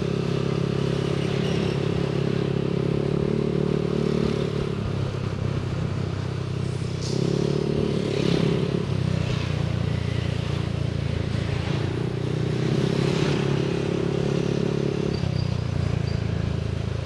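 Yamaha NMAX 155 scooter's single-cylinder four-stroke engine running while riding in traffic. Its note shifts several times as the throttle opens and eases off.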